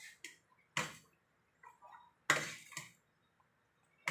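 A cooking utensil knocking and clinking against a pan while sauce is stirred: two sharp knocks about a second apart and a half, with lighter clinks between.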